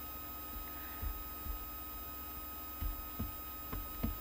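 Steady electrical hum with a few fixed whining tones from the recording setup, with about six faint, short low knocks scattered through.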